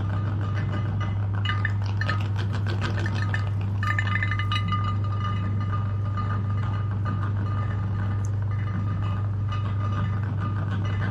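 Light clinks and taps of firm jelly pieces knocking against a glass bowl as they are handled, over a steady low hum.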